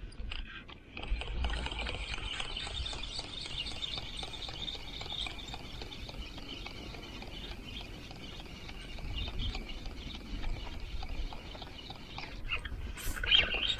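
Spinning reel being cranked in, a steady fast ticking whir over a low rumble, stopping about twelve seconds in.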